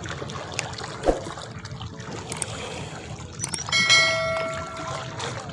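A single bell-like ring just before four seconds in, several clear tones sounding together and fading away over about a second, over steady background noise.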